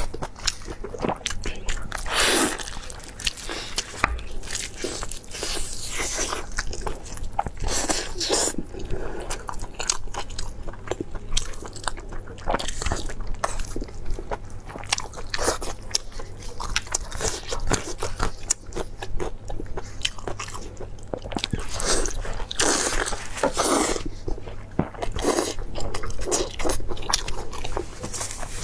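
A person eating close to the microphone: biting and chewing crunchy food, with many small crackling crunches and louder bites every few seconds.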